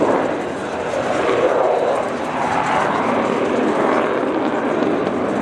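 Loud jet noise of the Avro Vulcan XH558's four Rolls-Royce Olympus turbojets as the delta-wing bomber climbs away in a steep bank after a fast flypast. The noise is steady, dipping slightly about half a second in and then swelling again.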